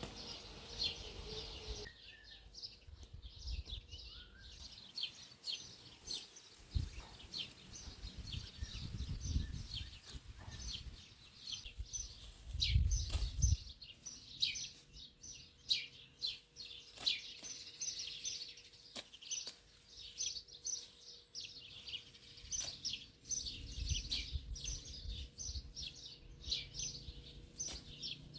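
Small birds chirping continuously, many short rapid chirps overlapping, with a few brief low rumbles underneath, the loudest about halfway through.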